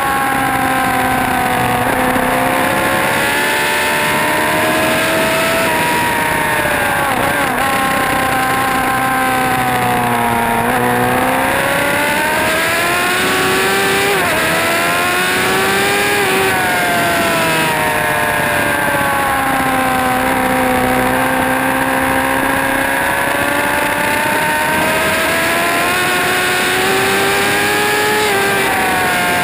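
Motorcycle engine under hard track riding, its pitch rising as it accelerates and falling as it slows, several times over, with a steady rush of wind noise.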